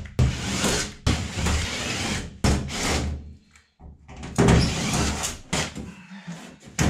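Cordless drill backing out the screws of a school bus's interior panel above the rear emergency door, in several short runs of about a second each. Near the end the panel comes loose with some metal scraping and rattling.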